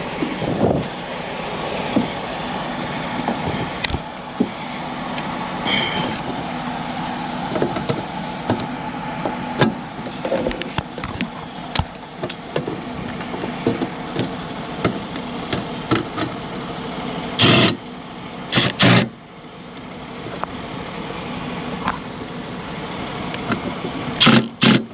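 Steady running machinery noise with scattered clicks and knocks, and short loud bursts twice about two-thirds of the way through and again near the end.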